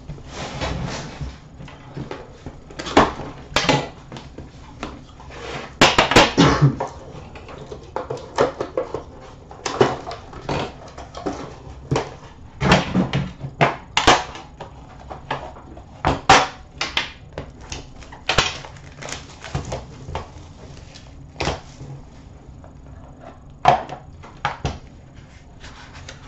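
A sealed hobby box of 2015-16 Upper Deck The Cup hockey cards being opened by hand: irregular taps, scrapes and rustles of the box and its hard inner case being handled, lifted out and unlidded, with a louder cluster about six seconds in.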